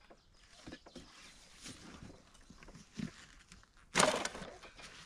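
Camping gear being handled and shifted in a plastic crate: soft irregular knocks and rustles, then a louder rustle of heavy fabric about four seconds in as the bagged tent is lifted out by its straps.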